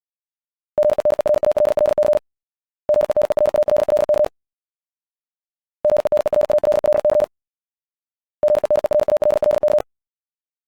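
Morse code sent at about 70 words per minute: a single mid-pitched beep keyed on and off in very rapid dits and dahs. It comes in four bursts of about a second and a half each, with short silent gaps between them.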